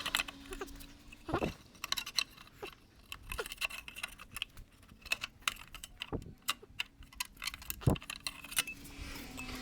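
Irregular light metallic clicks and clinks with a few duller knocks, from steel repair panels and hand tools being worked and handled during sheet-metal bodywork.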